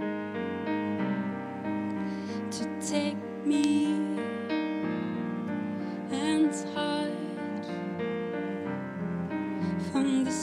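Slow, gentle live song: a woman singing over sustained chords on a Yamaha digital stage piano, with bowed cello.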